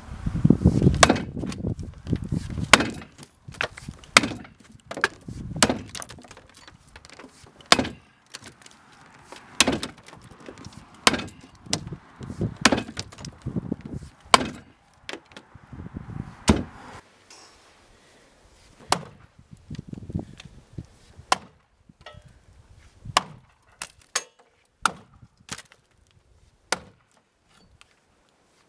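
Racing axe chopping a standing block of wood: a long series of sharp blows into the wood, roughly one every one and a half to two seconds.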